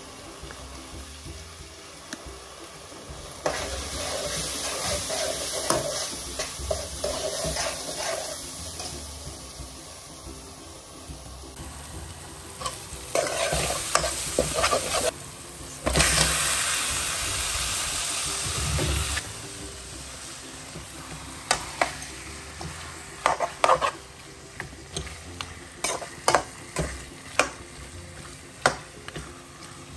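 Onion and spice masala sizzling in a metal pan as it is stirred with a spoon, the frying hiss coming and going in long stretches. In the last third it is quieter, with sharp clinks and scrapes of the spoon against the pan as raw chicken pieces are stirred through the masala.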